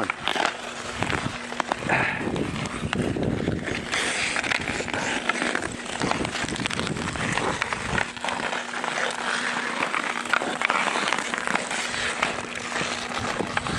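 Ice hockey skates scraping and carving on rink ice, with many sharp clacks of hockey sticks hitting the ice and the puck.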